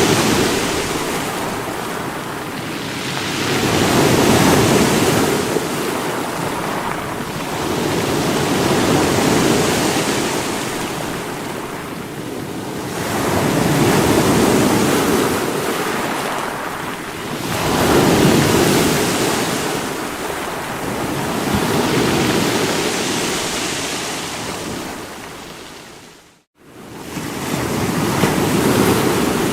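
Sea waves washing in against rocks: a continuous surf that swells and eases every four to five seconds. About 26 seconds in it drops away to a moment of silence, then swells straight back.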